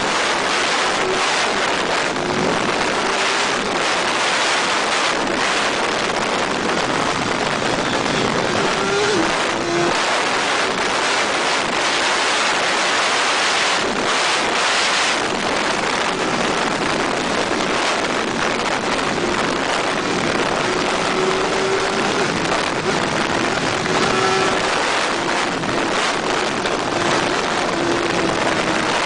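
Wind rushing over the microphone of a Honda CBR1000RR ridden at speed, a steady noise that covers most of the sound. The bike's inline-four engine note runs faintly beneath it, shifting in pitch a couple of times.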